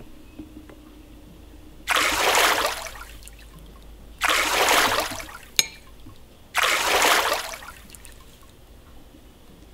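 Water trickling and splashing off a metal spoon into a glass bowl of water, in three short spells a couple of seconds apart, as a small toy doll is dipped and lifted. One sharp clink of the spoon against the glass bowl just past halfway.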